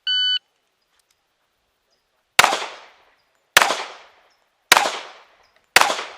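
An electronic shot timer beeps once, then a pistol fires four shots, each about a second apart, with a short echo after each shot.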